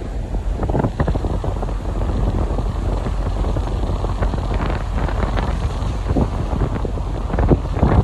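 Strong wind buffeting the phone's microphone in irregular gusts, over the rush of churning, foaming sea along the side of a cruise ship.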